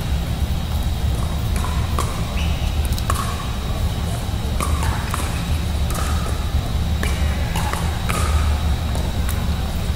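Pickleball rally: paddles striking a hard plastic Franklin X-40 ball, each hit a short sharp pop with a brief ring, coming about once a second over a steady low hum.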